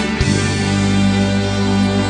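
Instrumental pop ballad music, no singing: sustained chords over a held bass note that comes in about a quarter second in.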